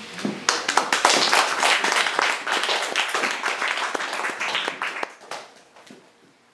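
Audience applauding, a dense patter of hand claps that dies away near the end.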